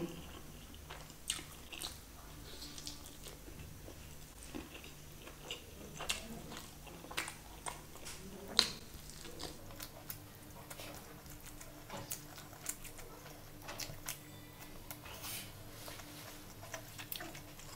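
Close-up eating sounds of a person chewing a mouthful of chicken curry and rice, with scattered short, sharp mouth clicks and smacks throughout.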